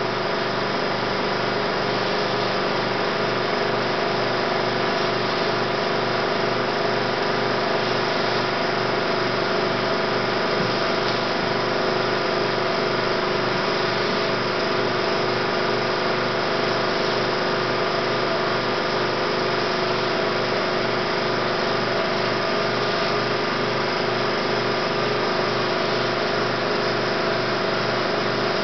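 16mm film projector running: a steady motor hum and whir with a faint regular pulse of about two beats a second.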